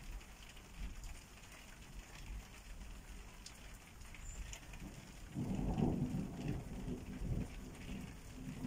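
Steady rain falling, with a low roll of thunder starting about five seconds in and lasting around two seconds.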